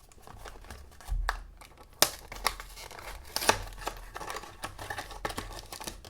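A small cardboard blind box being torn open by hand, with plastic packaging crinkling and rustling and a few sharp snaps, the loudest about two seconds in.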